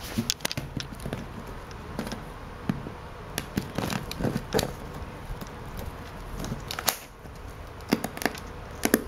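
Scissors cutting through plastic strapping band on a cardboard box: an irregular series of sharp snips and clicks, some in quick clusters, with scraping of the blades against the box.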